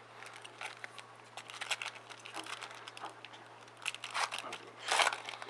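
Topps Chrome foil trading-card pack wrapper crinkling and being torn open by hand, in irregular crackles that are loudest near the end.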